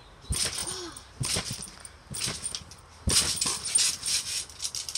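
Trampoline being jumped on, about one bounce a second: each landing gives a low thump on the mat followed by a hissing swish, with the bounces coming quicker and loudest from about three seconds in.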